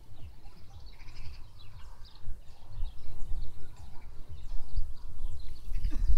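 Wind rumbling on the phone's microphone, getting louder about halfway through, with faint bird chirps above it.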